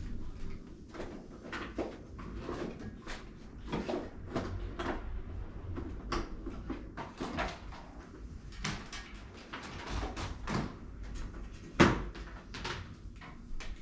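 Irregular knocks, taps and clatter of cleaning work as objects are handled, moved and set down, with one sharper, louder knock near the end.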